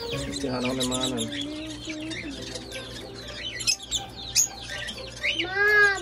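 Pet lovebirds and cockatiels chirping, with many quick high chirps throughout. A voice sounds low early on, and a loud, drawn-out high voice rises and falls near the end.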